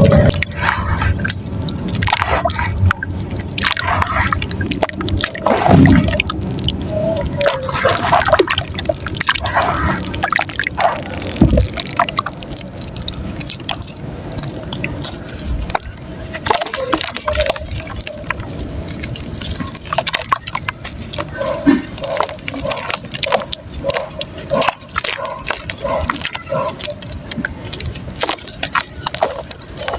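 Chunks of soft mud crumbling and breaking up in water, working into a wet paste, with many small irregular clicks and crackles.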